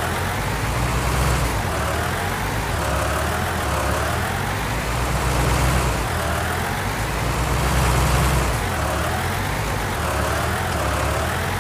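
Tractor engine sound, most likely a recorded engine track rather than the toy itself. It runs steadily with a regular rise and fall about every two seconds, in a repeating pattern.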